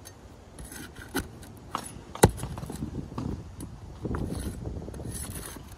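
A flat metal roofing tool scraping and prying under asphalt shingles to break their seal and work the nails loose, with scattered clicks and one sharp snap about two seconds in.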